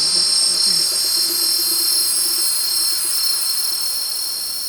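A steady hissing drone made of several high whistling tones over a noisy hiss, fading slowly near the end. Under it, a faint low wavering tone dies away about three seconds in.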